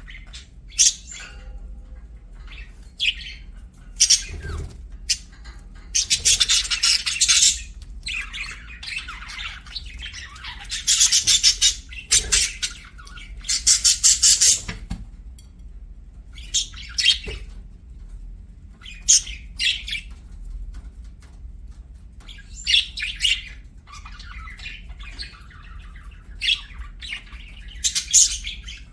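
Pet budgerigars chirping and chattering, with short high calls and a few longer buzzy warbling runs.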